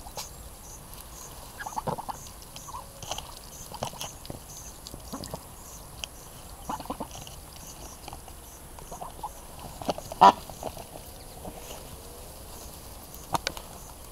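A flock of Muscovy ducks feeding at close quarters: scattered short, soft calls and pecking sounds, with one louder sound about ten seconds in.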